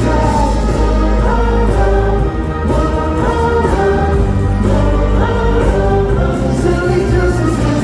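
Loud live music: a song with singing over a steady bass.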